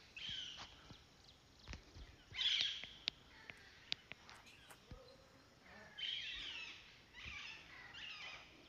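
Birds calling and chirping in several short bursts, with a few sharp clicks around the middle.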